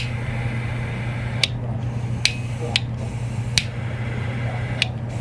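Butane torch lighter's piezo igniter clicking six times at uneven intervals as it is fired again and again, checking that it sparks consistently onto the jet head.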